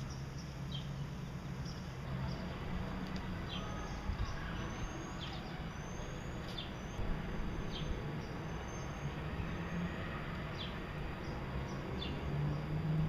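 Small finches, Gouldian finches, giving short high chirps and quick rising call notes about once a second, over a steady low hum.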